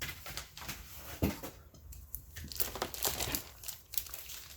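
Packing material crinkling and tearing as a mail package is unwrapped by hand: irregular rustles and crackles, with a single knock about a second in.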